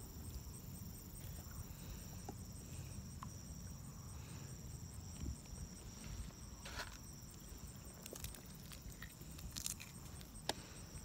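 Insects trilling in a steady, high, pulsing chorus over a low rumble of wind on the microphone, with a few faint clicks scattered through.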